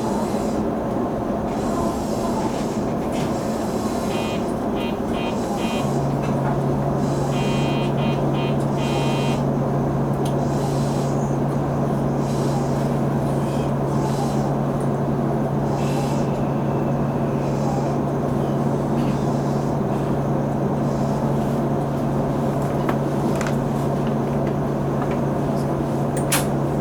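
Electric commuter train heard from inside the car: steady running noise, with a low steady hum that comes in about six seconds in. Two short runs of rapid electronic beeping sound a few seconds in.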